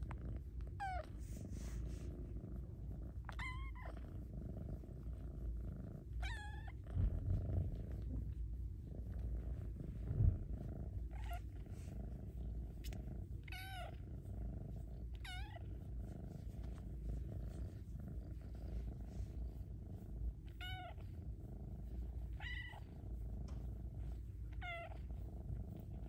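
Snow Lynx Bengal kitten purring steadily while being petted, with about nine short, high meows scattered through the purr. Two brief low thumps come about seven and ten seconds in.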